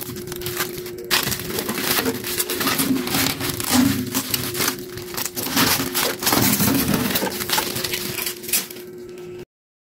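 Plastic protective film crinkling and crackling as it is peeled off and handled on a stainless steel oven panel, with a faint steady hum underneath. It cuts off suddenly near the end.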